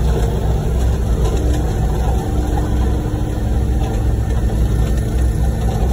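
Heavy diesel truck engines of a concrete pump truck and ready-mix truck running steadily while concrete is being pumped.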